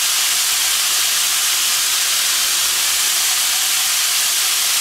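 Strips of meat searing in oil in a hot wok: a steady frying sizzle.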